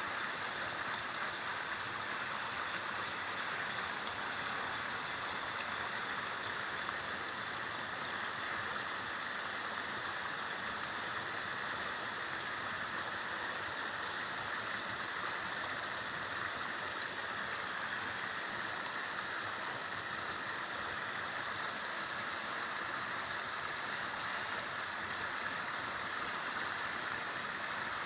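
Steady rushing of fast-flowing canal water, an even, unbroken hiss.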